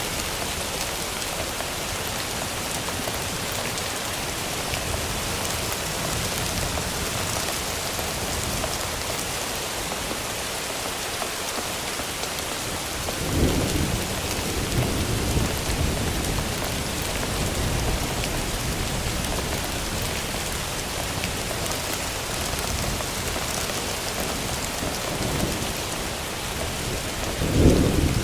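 Thunderstorm sound-effect track layered in Audacity: steady rain hiss throughout, with thunder rumbling in about halfway through and a louder clap of thunder right at the end.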